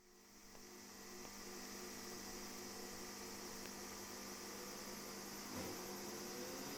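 Rain pattering on an umbrella over a steady low hum. Near the end a motor-driven music siren begins to wind up, its pitch rising.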